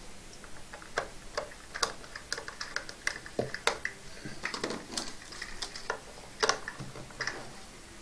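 Small screws being driven into the metal top cover of a Yaesu FT290R transceiver: irregular light clicks and taps of the driver and screws on the metal case, with hands shifting the cover.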